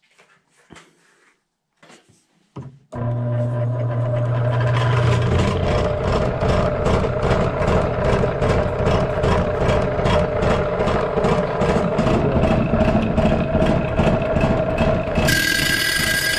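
Covington 6-inch combination lapidary machine switched on about three seconds in, its motor and diamond trim saw running with a steady hum and a rapid regular pulsing, about four a second. Near the end a higher ringing joins in as the rock is fed into the saw blade.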